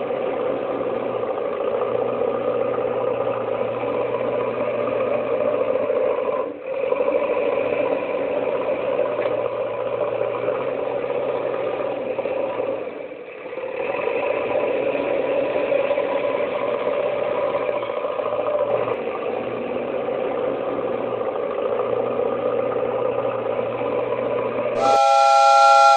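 A vehicle engine running steadily, with brief dips in level about a third and half of the way through. In the last second a louder sound with several steady pitches, like a horn, comes in.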